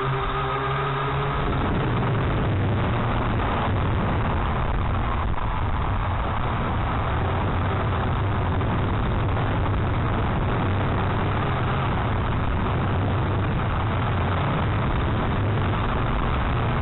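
Strong wind buffeting the microphone: a steady, loud rumble that does not let up.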